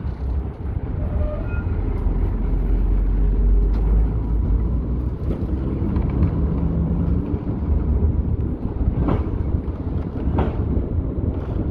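Old Vienna tram running along its track: a steady low rumble with a few sharp knocks, two of them close together near the end.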